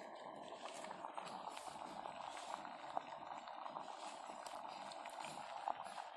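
Dr. Trust electric facial steamer running: water boiling in its heater, a steady hiss with small irregular crackling pops.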